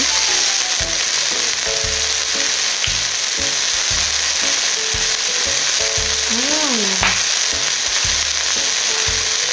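Pieces of meat and mushroom sizzling steadily on a hot grill pan.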